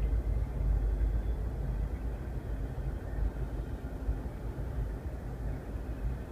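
Double-stack container freight train rolling past, a steady low rumble heard from inside a car.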